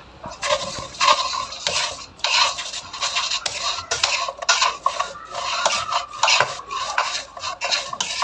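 Wooden spatula stirring fried pork pieces around a wok, a quick, uneven run of scrapes against the pan as the meat is tossed to coat in melted salted egg yolk.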